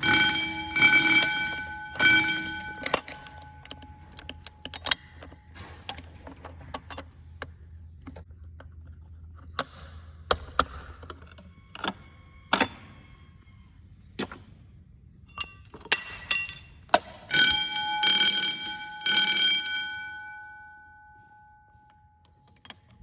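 Fire alarm motor bell ringing in short bursts, twice near the start and longest near the end, its gong ringing on and fading out after the last burst. Sharp metallic clicks and clinks sound between the bursts.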